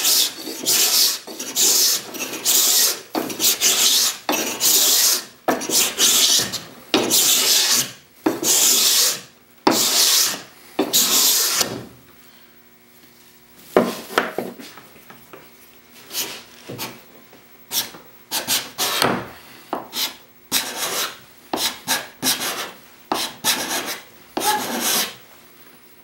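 Hand scraper with a burnished hook edge cutting mahogany in repeated rasping push strokes, about one a second. After a short pause about halfway through, the strokes come shorter and lighter.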